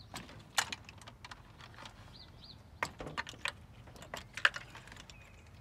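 Irregular plastic clicks and small knocks of fuel injector wiring connectors on a Nissan 350Z being unplugged by hand, a dozen or so sharp ticks spread unevenly, the loudest about half a second in and near four and a half seconds in.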